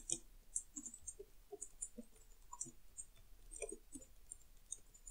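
Faint computer keyboard typing: short, irregular key clicks, a few each second.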